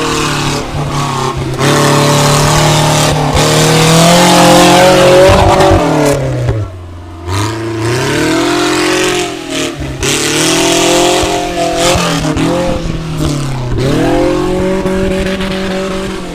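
Off-road 4x4's engine revving hard under load. Its pitch drops and climbs back up about three times.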